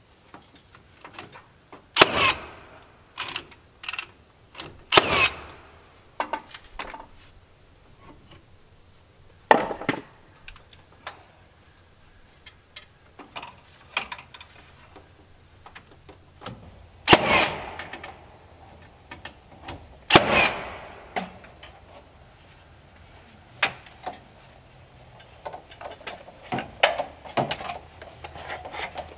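Cordless nail gun firing nails into wooden trim boards: about five loud sharp shots, several seconds apart, among lighter knocks and clicks. A flurry of small knocks comes near the end.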